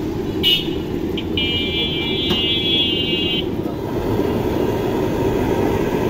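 Street traffic noise with a buzzing vehicle horn: a short toot about half a second in, then the horn held for about two seconds.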